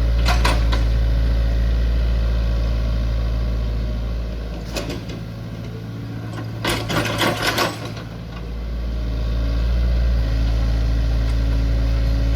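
A heavy machine's engine running with a deep, steady hum. It eases off in the middle while a burst of clattering metal knocks sounds, then comes back up to full level, with a brief clank about half a second in.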